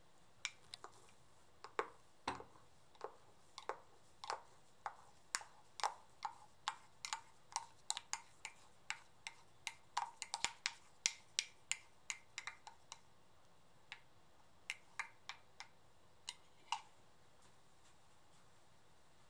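Light, irregular clicks and taps, up to a few a second, as frothed milk is poured from a glass jug into a ceramic cup; they stop a couple of seconds before the end.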